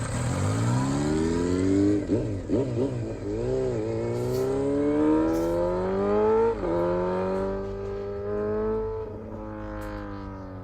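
Yamaha MT-25's 249 cc parallel-twin engine and exhaust, blipped up and down a few times about two seconds in, then pulling hard with its pitch climbing steadily, dropping sharply at an upshift about six and a half seconds in and climbing again, with another shift near the end.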